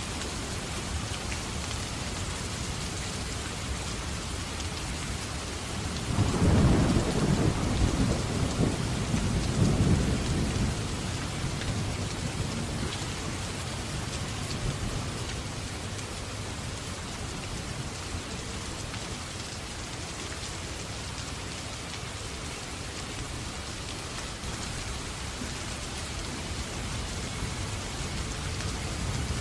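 Steady rain, with a low rumble of thunder starting about six seconds in and dying away over about five seconds.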